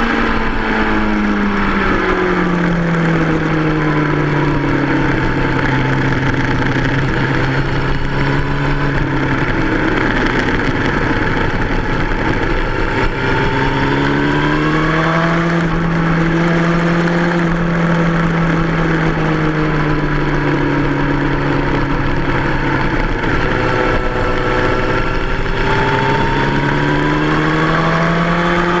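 2003 Yamaha R1's 998 cc inline-four engine running hard on track, with a steady rush of wind. The engine note sinks over the first few seconds, climbs again about halfway, sinks slowly, and climbs once more near the end.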